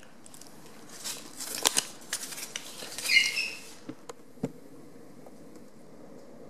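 Light scratching and small clicks of a thin wooden stick and tools being handled against a steel bracket jig on a wooden board, with a brief squeak about three seconds in and a few last clicks shortly after.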